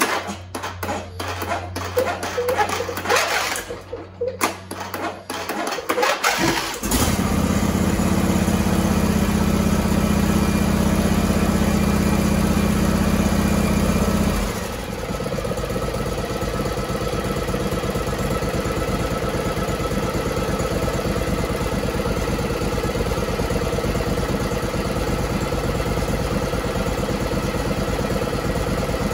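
Air-cooled Briggs & Stratton V-twin four-stroke from a John Deere riding mower, mounted on an outboard leg, being cranked on its electric starter for several seconds and catching about seven seconds in. It runs fast and loud, then drops to a lower, steady idle about halfway through.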